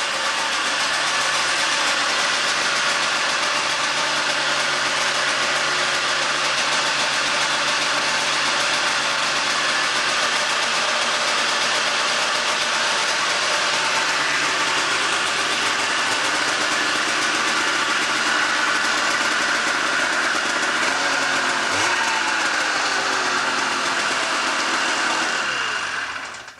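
Engine of a just-repaired vehicle running steadily, now in working order. Near the end its pitch falls and the sound then cuts off.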